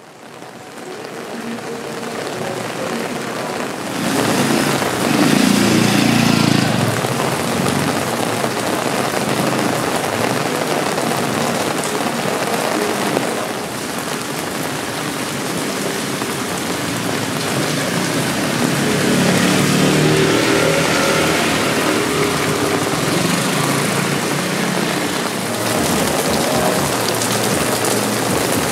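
Rain falling steadily on wet pavement and streets, a constant hiss and patter that fades in over the first couple of seconds. A deeper rumble swells up twice, around five seconds in and again around twenty seconds.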